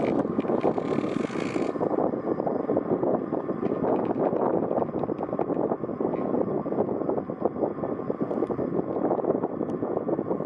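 Steady rumble of a car driving, with road and wind noise buffeting the microphone; a higher hiss is added for the first second and a half.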